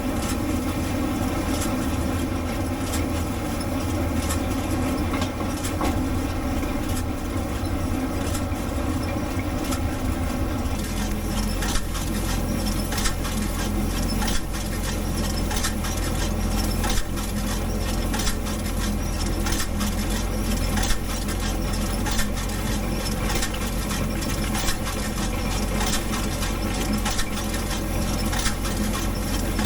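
International Harvester 706 tractor's engine running steadily while pulling a John Deere 510 round baler, the engine note shifting about ten seconds in, with frequent sharp clicks and rattles after that.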